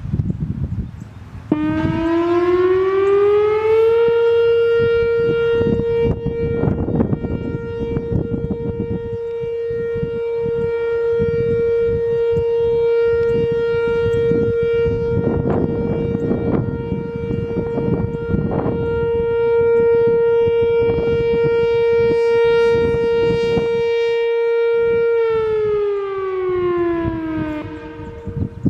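Whelen WPS-4004 electronic warning siren sounding its steady alert tone. It winds up in pitch over about two seconds, holds one steady tone for about twenty seconds, then winds down near the end.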